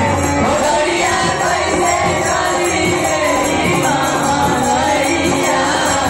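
Live Bhojpuri folk song: a boy singing to harmonium and dholak, with the steady jingle of manjira hand cymbals.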